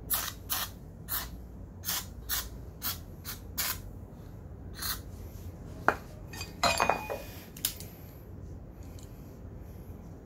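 A screwdriver scraping in short, quick strokes, about nine times in the first four seconds, against a scooter's metal front brake caliper. Then a few metal clicks and clinks, one of them ringing briefly, as the caliper is handled and fitted back over the brake disc.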